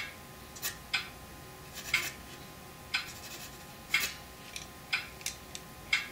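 Steady clock-like ticking, one sharp tick about every second, with a few fainter clicks in between.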